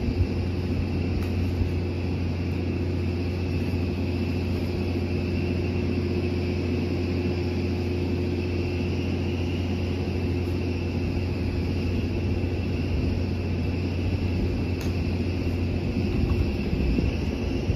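An engine running steadily at constant speed: a low, even drone with a fainter steady whine above it.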